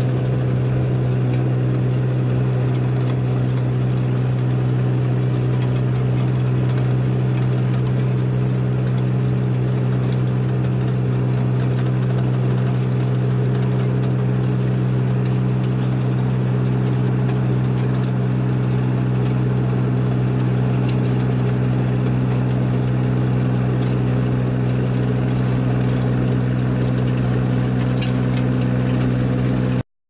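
Engine of an ASV compact track loader running steadily at working speed while driving a hydraulic power rake through loose soil, a constant low hum with a rough haze on top. The sound cuts off suddenly at the very end.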